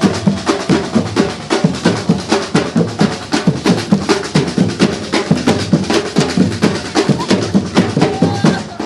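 Percussion drumming at a fast, steady rhythm of several strikes a second.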